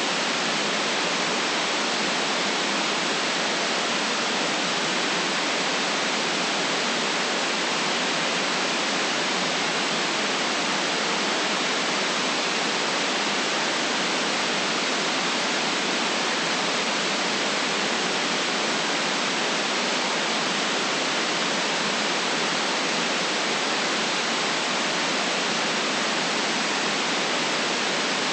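Steady white noise: an even, unchanging hiss with no rumble underneath and no separate events.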